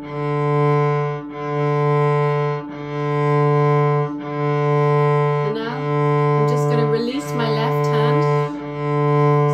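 Cello's open D string bowed back and forth with only the weight of the bow: one steady, even note, the bow changing direction about every second and a half. It is the natural, easy sound of the bow with no pressure from the player.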